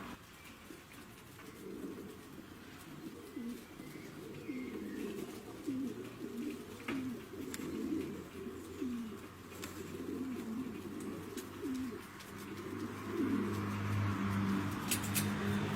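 Repeated low pigeon-style cooing, short call after call. A steady low hum comes in near the end.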